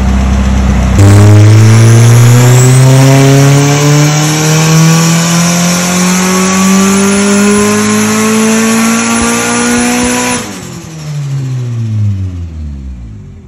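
Turbocharged Honda engine making a full-throttle pull on a chassis dyno. The revs climb steadily and loudly for about nine seconds, then drop away as the throttle is let off near the end.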